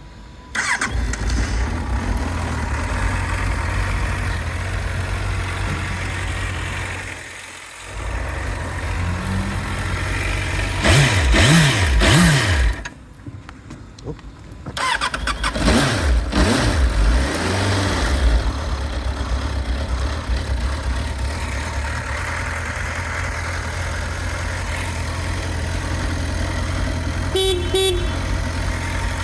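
Suzuki Bandit 650's fuel-injected, water-cooled inline-four is started and idles. It is blipped up and down twice in the middle, with a short drop-off in between, then settles back to a steady idle. A short horn beep sounds near the end.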